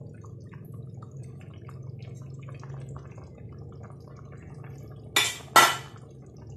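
A steel ladle stirs and scrapes through simmering chicken adobo in a pot, with small liquid ticks over a low steady hum. Near the end come two sharp metallic clatters close together, the second louder, as the ladle is set down.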